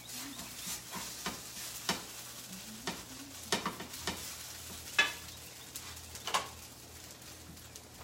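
Food sizzling in a frying pan on the stove, with a metal utensil clinking and scraping against the pan at irregular moments; the sharpest clink comes about five seconds in.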